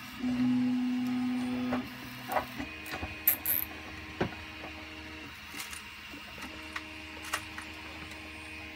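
3D printer's stepper motors whining in steady held tones that shift pitch from one move to the next, louder for the first couple of seconds. Scattered light clicks of hard plastic parts being handled run through it.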